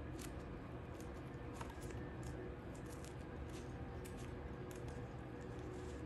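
Blue painter's tape and a paper pouch crackling and rustling as they are pressed and smoothed against a chicken's feathers by hand: many small irregular clicks over a low steady hum.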